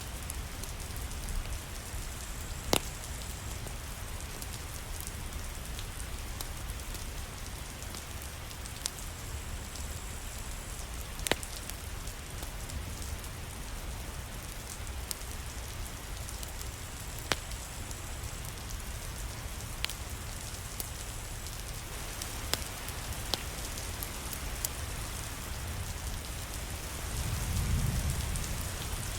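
Steady rain hissing, with sharp pops of a crackling wood fire every few seconds and a brief low rumble swelling near the end.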